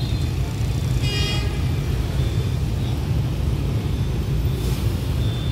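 Steady low rumble of motorbike and street traffic engines, with a short, high-pitched horn toot about a second in.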